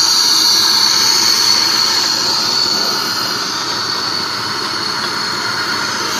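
Steady, loud hiss and whine of workshop machinery, with a high tone running through it, easing slightly about halfway.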